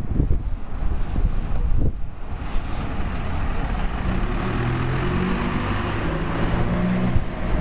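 A single-deck city bus's diesel engine running close by, over traffic noise, with wind buffeting the microphone in the first couple of seconds.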